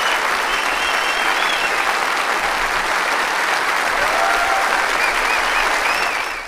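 Large audience applauding steadily, with the clapping fading away at the very end.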